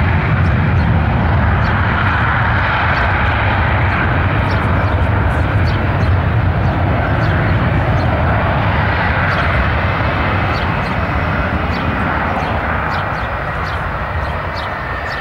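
Boeing C-17 Globemaster III's four Pratt & Whitney F117 turbofan engines running at taxi power as the aircraft taxis past: a loud, steady jet noise with a deep rumble, easing off slightly near the end.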